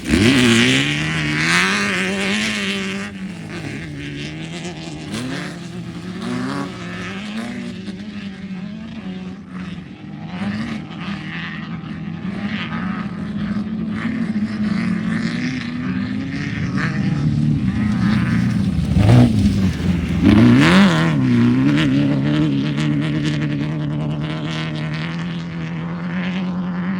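Off-road race car engines running, a steady drone, with louder passes near the start and again about twenty seconds in, where the engine pitch sweeps up and down.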